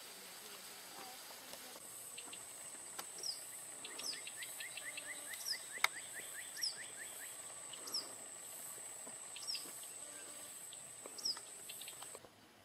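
Wild birds calling over a steady high insect whine. A short, high, falling call repeats about every second and a half, and a quick run of rising chirps comes in just before the middle.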